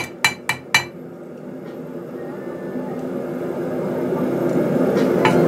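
Hand hammer striking hot 1/8 inch flat steel stock on an anvil, flaring out the end: a quick series of ringing blows, about four a second, that stops about a second in. A steady rushing noise with a low hum then builds and grows louder, with one more ringing strike near the end.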